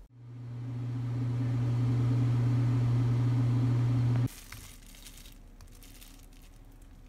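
A steady low hum, like a motor or appliance running, grows louder over the first two seconds and cuts off abruptly about four seconds in. Faint clicks and rustles follow.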